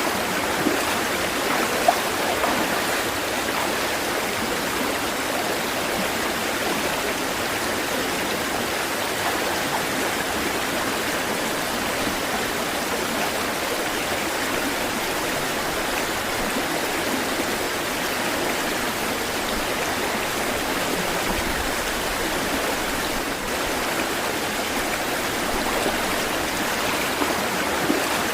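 Running water rushing steadily and evenly, with no rise and fall of surf. A brief louder tick comes about two seconds in.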